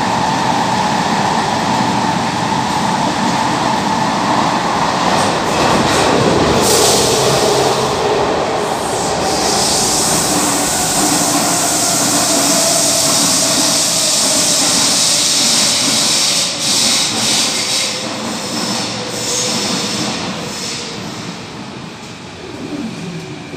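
Second-generation Athens metro train running through a tunnel, with loud wheel and rail noise and a high-pitched hiss through the middle stretch. It then slows into a station, the noise easing off and an electric whine falling in pitch near the end as it brakes.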